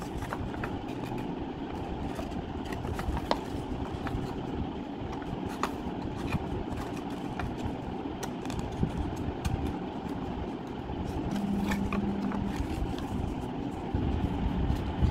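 Sheet of paper being folded and creased by hand, with scattered crackles and taps, over a steady low rumble of background noise.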